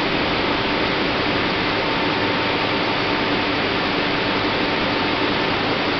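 Steady machinery noise of an aseptic filling line: an even hiss with a faint continuous hum underneath.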